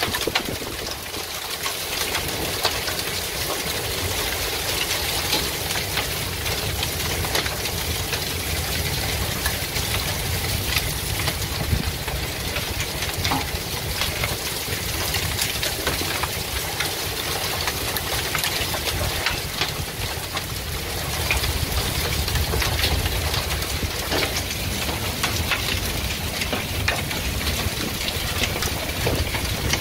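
Hailstorm with rain: a dense clatter of hailstones striking over a steady hiss of rain, with a low rumble of wind buffeting the microphone.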